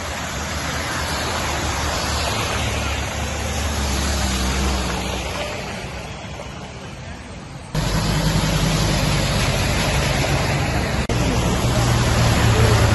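Cars driving through a flooded road: a low engine hum over a steady rush and hiss of water thrown up by the tyres. The sound cuts abruptly to a louder stretch a little over halfway through.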